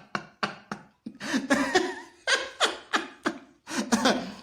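A person laughing in short, rapid bursts, with a brief pause about a second in before the laughter resumes.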